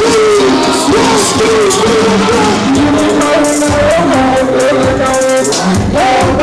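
Hip-hop music: a melodic line stepping between notes over a beat with hi-hats and bass.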